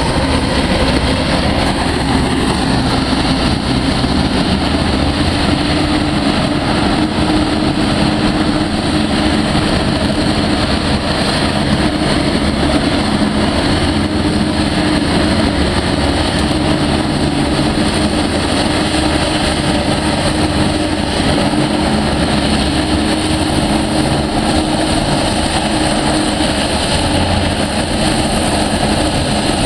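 Griffon 12000TD hovercraft's engines and twin ducted propellers running steadily while it hovers on its cushion on the pad, a loud, even drone with a steady hum under it.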